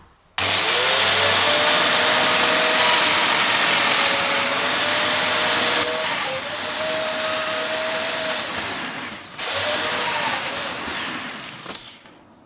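Handheld power tool's high-speed motor spinning up with a rising whine and running steadily while cutting slots for small joint connectors in mitred wood. It stops briefly about nine seconds in, then spins up again and runs for about two more seconds before cutting off.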